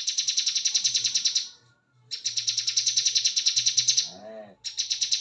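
Bar-winged prinia (ciblek kebun) singing its rapid, rattling 'ngebren' trill, likened to AK-47 fire, high-pitched and fast-pulsed. It comes in three bursts of about two seconds each, with short gaps between.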